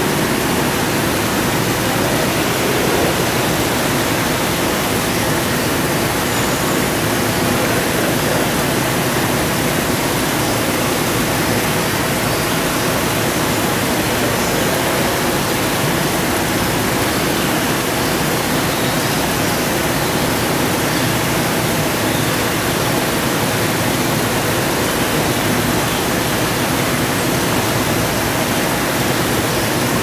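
A steady, even rushing noise that does not change.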